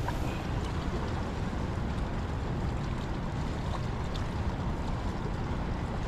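Steady low rushing wind noise buffeting an outdoor camera microphone, with a few faint clicks of handling.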